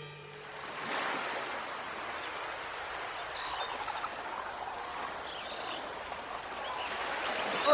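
Ocean waves washing onto a sandy beach, a steady wash of surf that fades in during the first second.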